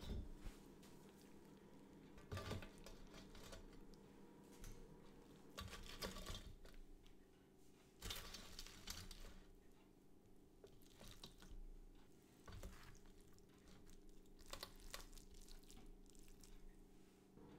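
Faint crackles and light taps of crispy, crumb-coated fried chicken breasts being laid and pressed onto a pizza pan, in short clusters every second or two, over a faint steady hum.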